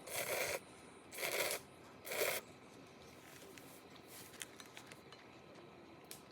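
Three short crunching scrapes about a second apart, each about half a second long, followed by a few faint ticks.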